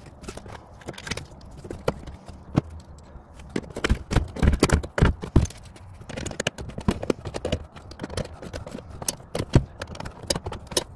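Socket ratchet clicking in short, irregular runs as it drives in the screws that hold the engine's PCM to its mount, with knocks of the tool against the module.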